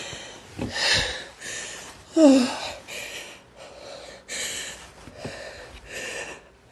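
A woman's short, gasping breaths, about one a second, with a brief voiced "ah" about two seconds in. These are the catching breaths of a sneeze building from an allergy tickle in the nose.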